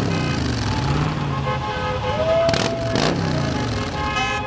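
Cars, pickup trucks and motorcycles passing on a road, engines running with their pitch rising and falling as they go by. A held pitched tone sounds about halfway through, and more pitched tones sound near the end.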